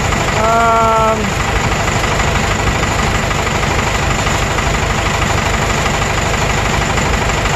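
Cummins 4BT 3.9-litre turbo diesel in a stump grinder running steadily and loudly, with a fast even chug; the engine has low compression across all cylinders and blow-by, which the mechanic puts down to worn piston rings. A short flat-pitched tone sounds over it about half a second in.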